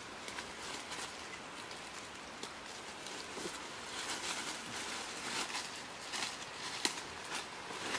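Dry leaf litter rustling and crackling as bodies shift on it and bare feet step through it. The crackles come thickest in the second half, with one sharper snap near the end, over a steady background hiss.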